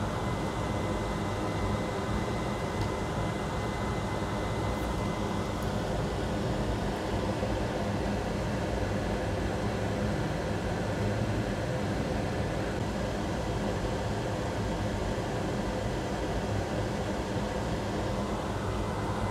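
Steady whirring fan noise with a faint high whine running under it.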